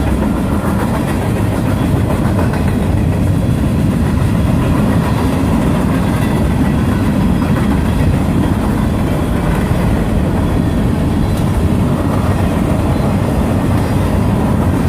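Freight train rolling past close by, a loud, steady rumble of cars on the rails.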